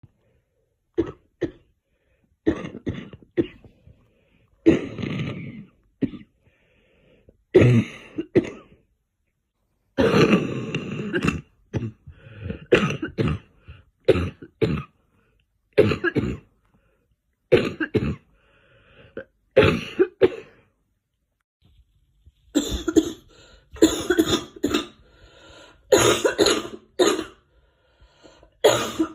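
A girl coughing over and over in short bouts of several quick coughs, with pauses of a second or two between them; the bouts come closer together near the end.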